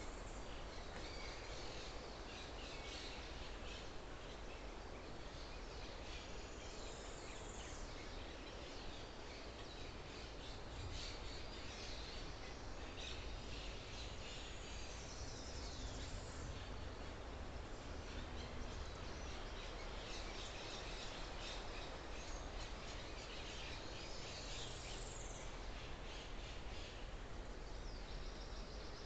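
Forest ambience: birds calling now and then over a steady background hiss and low rumble, with a few sweeping calls that fall in pitch.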